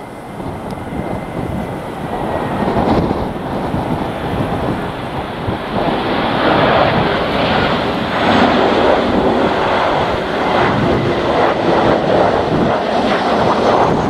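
Boeing 737-800's CFM56 jet engines on final approach, growing steadily louder as the airliner nears. Strong wind buffets the microphone throughout.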